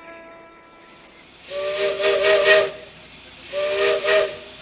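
Steam locomotive whistle blown twice: a chord of a few notes with a breathy hiss, the first blast about a second long and the second a little shorter.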